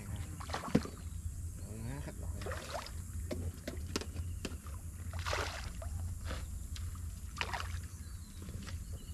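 A hooked fish splashing at the pond surface in short, irregular bursts while it is played on a long pole, over a steady low rumble.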